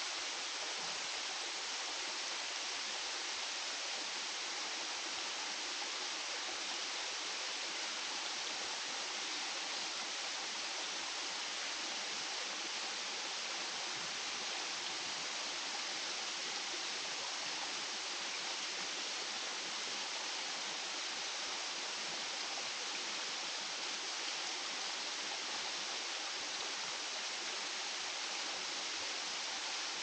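Falling water from a rainforest waterfall, a steady, unbroken rush.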